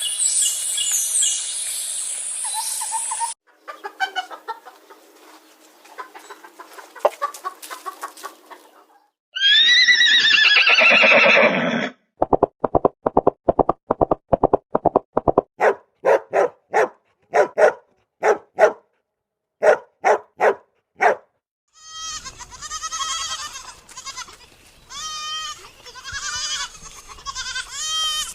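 A string of different farm animal calls, one clip after another. Among them are a loud bleat around ten seconds in, a long run of quick clucking pulses, and warbling bird-like calls near the end.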